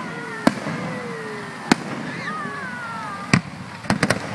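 A fireworks display: aerial shells bursting with sharp bangs at irregular spacing, about six in all. Three of them come in quick succession near the end.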